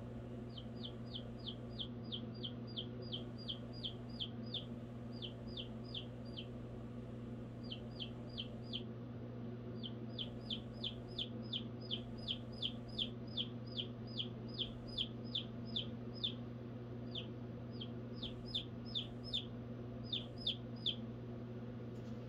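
Baby chicken chick peeping: short, high, downward-sliding peeps in quick runs of about four a second, broken by brief pauses, over a steady low hum.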